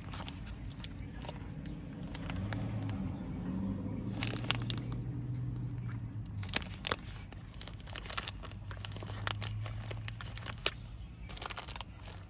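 A person chewing a soft, chewy baked oatmeal square close to the microphone, with scattered sharp mouth clicks. A low hum comes and goes twice.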